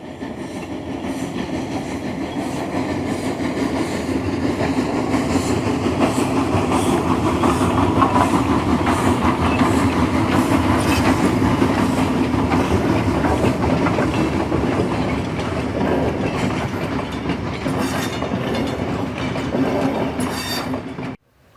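Train running along its track with a steady rumble and clickety-clack over the rails, building up over the first few seconds and cutting off suddenly near the end.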